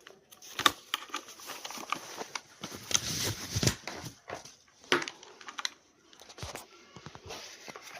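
Hands handling a mechanical keyboard and its cardboard box and packaging: irregular knocks, taps and rustling.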